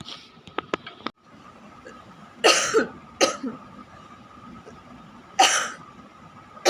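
A person coughing in short, forceful bursts: two coughs close together about two and a half seconds in, another about five and a half seconds in, and a fourth starting at the end.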